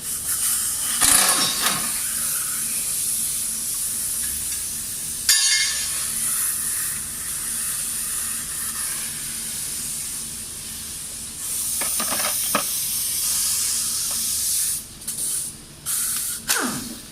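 Steady high hiss with a sharp click about five seconds in and a few short knocks of tool work; the hiss breaks off in short gaps near the end.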